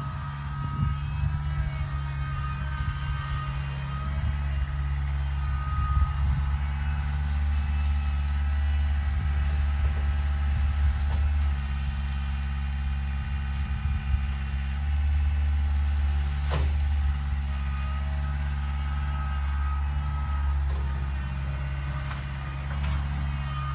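Old John Deere 24A skid steer's engine running steadily under working load, its level rising and falling a little. Scattered small knocks, and one sharp crack about two-thirds of the way through.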